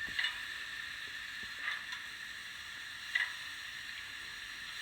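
Sound decoder of a Fleischmann BR 01 steam-locomotive model, heard through its small speaker, playing a steady steam hiss with a soft puff about every one and a half seconds. This is the turbo-generator (dynamo) function F17, which has just been switched on.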